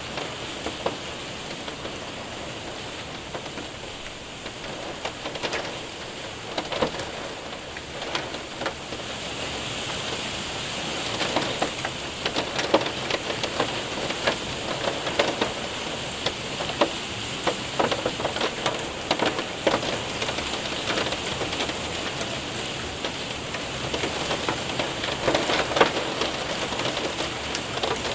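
Rain and hail hitting a window and roof: a steady patter with many sharp taps of hailstones, which grow denser and louder about ten seconds in.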